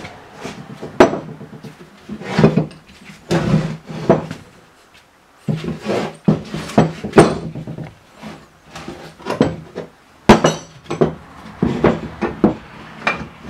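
Steel hand tools and a threaded C-frame bushing press being picked up, shifted and set down on a wooden workbench while the press is set up on a lower control arm bushing: irregular metal clanks and knocks on wood. The sharpest clank comes about ten seconds in.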